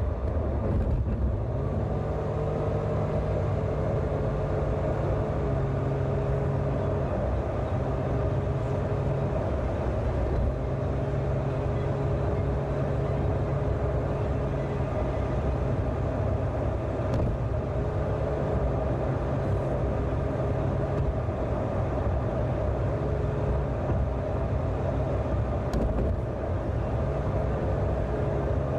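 Car driving along a road: a steady low rumble of engine and road noise with a faint hum that shifts slightly in pitch now and then.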